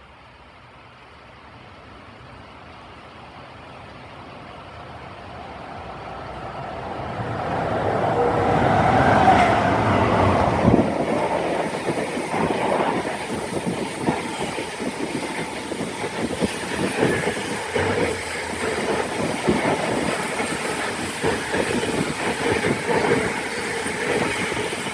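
A train approaching and passing close by. Its rumble grows steadily louder for about nine seconds and peaks as the front goes past. Then a steady run of rapid wheel clatter follows as the carriages roll by.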